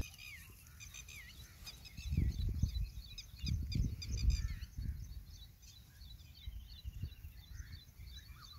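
Several small birds chirping, with short falling whistles scattered throughout. Low rumbling noise on the microphone swells a few times, loudest around two and four seconds in.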